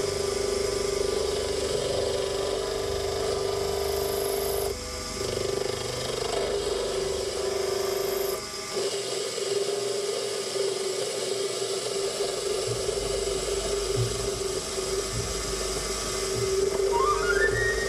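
Proxxon PD 250/e mini lathe running while a boring bar cuts inside a chromoly steel part: a steady hum with one clear held tone, breaking off briefly twice. A short rising run of high notes comes in near the end.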